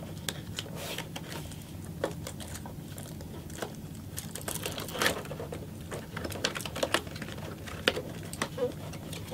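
Fingers picking and prying at the top flap of a cardboard retail box: irregular small clicks, taps and scrapes of packaging, over a steady low hum.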